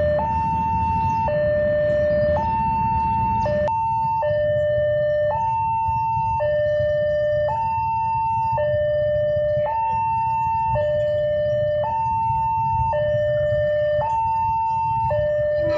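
Railway level-crossing warning alarm sounding a two-tone signal, a higher and a lower tone taking turns about once a second, over a low rumble; it warns that a train is coming and the crossing is closed.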